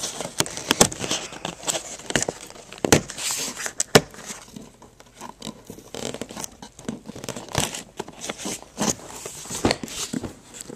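Crinkling and tearing of packaging as a Nerf blaster box is opened by hand, with irregular clicks and knocks from the cardboard being handled.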